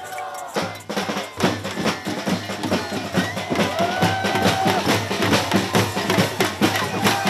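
A drum circle of many hand drums played together in a fast, dense rhythm, picking up and getting louder about a second in.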